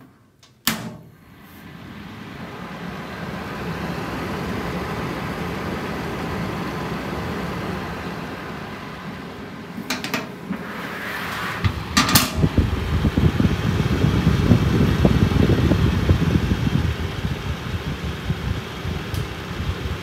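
Broughton FF3 3 kW electric fan heater switched on with a click, its fan spinning up over a few seconds to a steady whir of blown air that is pretty quiet. Near the middle there are a couple of knocks from handling the casing. In the second half the air stream from the front grille gusts louder and buffets the microphone.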